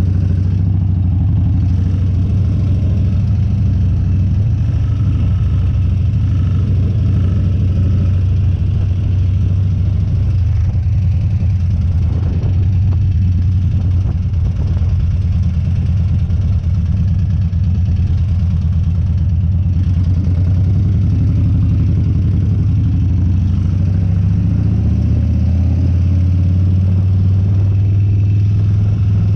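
Harley-Davidson Dyna's V-twin engine running steadily, its low note holding much the same pitch throughout.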